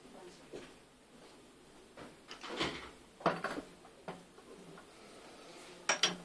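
A handful of scattered knocks and clatters from objects being handled, the sharpest a quick double click near the end.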